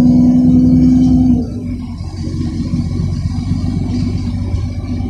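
Solaris Urbino 10 III city bus heard from inside the passenger cabin, its engine and drivetrain pulling with a strong steady whine over a low rumble. About a second and a half in the whine and pull cut off and the sound drops to a quieter, steady engine-and-road rumble as the bus cruises on.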